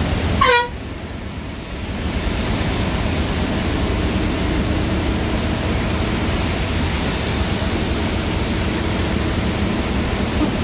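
Steady rush of heavy rain and road noise inside a bus cab at speed, with one short horn blast about half a second in. The noise drops briefly after the horn, then holds steady.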